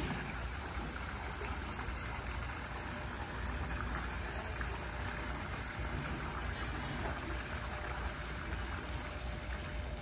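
Steady rain falling, with water running into the pool: an even, unbroken wash of water noise.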